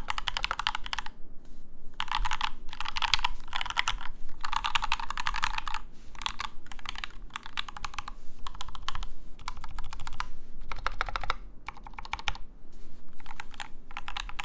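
Fast typing on an IDOBAO ID80 V2 mechanical keyboard with lubed and filmed Durock linear switches and OEM-profile keycaps. It comes in quick runs of keystrokes broken by short pauses.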